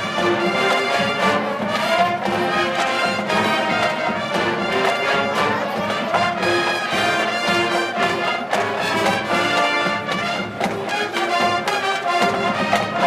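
Marching band playing: brass over drums and percussion, with a steady beat.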